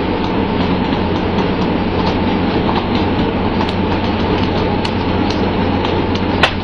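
Steady drone of a fishing boat's engine under the hiss of water spray and rushing sea along the hull. Scattered clicks and knocks on top, with one louder sharp knock near the end.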